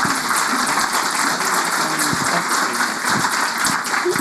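A large audience applauding: dense, steady clapping from many hands.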